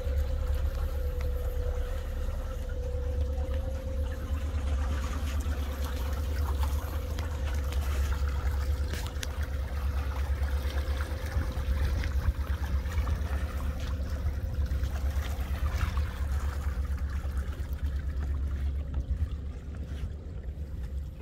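Water trickling and swishing in the wake behind the hulls of a solar-electric catamaran cruising on its electric motors, over a steady low rumble and a faint steady hum. No engine is running.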